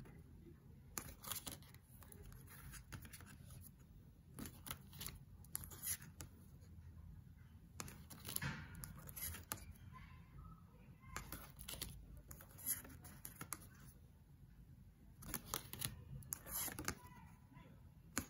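Large tarot cards being handled and flipped one at a time: brief slides and light taps of cardstock against the deck, coming irregularly every second or two.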